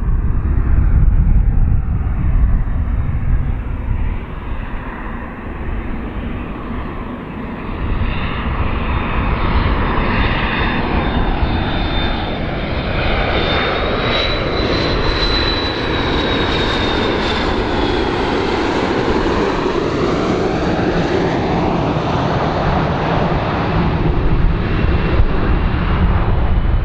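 Airplane engines running loud and steady as the aircraft passes, the noise sweeping up and down in pitch, with a high thin whine that rises and then falls about halfway through.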